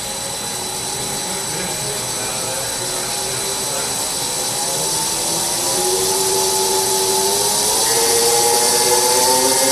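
Pandjiris 30-6AB welding positioner's table-rotation drive running, a motor whine that climbs steadily in pitch and gets gradually louder as the rotation speed is turned up from slow toward full speed.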